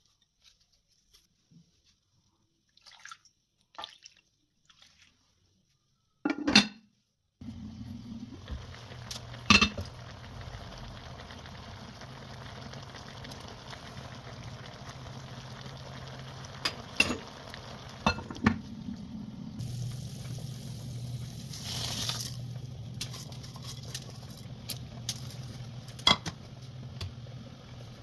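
Kitchen work: dishes and utensils clinking and knocking, with a louder knock about six seconds in. After that a steady hum starts and runs on under further clinks.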